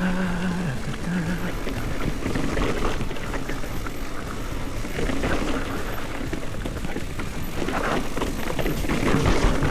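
Mountain bike rolling down a dirt trail: tyres on dirt and loose rocks, with the frame and chain rattling over bumps and wind noise on the mic. The knocks get busier near the end.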